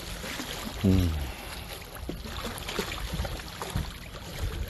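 Sea water lapping, with wind rumbling on the phone's microphone. About a second in, a person makes a brief vocal sound that falls in pitch.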